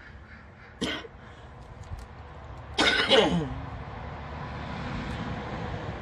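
A man clears his throat twice: a short cough about a second in, then a longer, throatier one about three seconds in that falls in pitch. A steady rushing noise then builds beneath.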